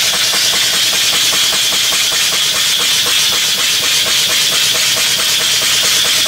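Model live steam engine (1-3/4-inch bore, 2-inch stroke) running steadily: a continuous hiss with a fast, even clatter from its moving parts.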